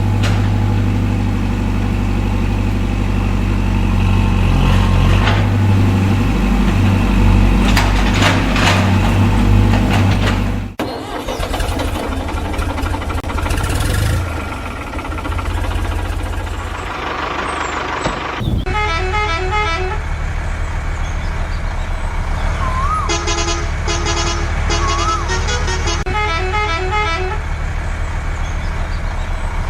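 Vehicle sound effects: a steady low truck-engine drone that cuts off abruptly about 11 seconds in and gives way to a rougher engine noise. From about 18 seconds a short run of electronic tones repeats in blocks, like a musical vehicle horn, with small rising-and-falling chirps.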